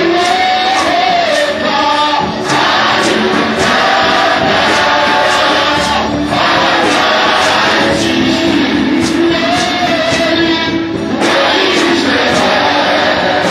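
Live worship music: singers, with a choir-like blend, over a band with guitar and a steady beat.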